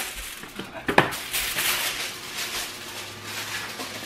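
Aluminum foil crinkling as a torn-off sheet is handled, with one sharp knock about a second in.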